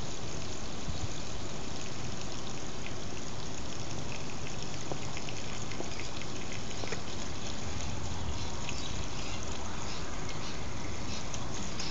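Water running steadily from the open end of a garden hose onto lawn grass, a continuous trickling with faint scattered ticks.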